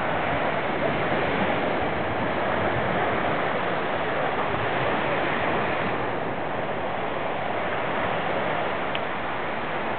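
Small waves breaking and washing up on a sandy shore: a steady hiss of surf.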